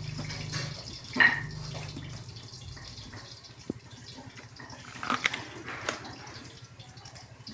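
Brazing torch flame hissing steadily while a refrigerator's filter drier is brazed into the copper refrigerant line, with a few sharp clicks.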